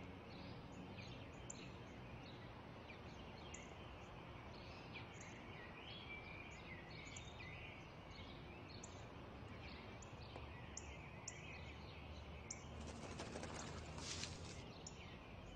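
Small birds chirping faintly and repeatedly, short high chirps and a wavering twitter, over a soft outdoor hiss. A brief rustle comes near the end.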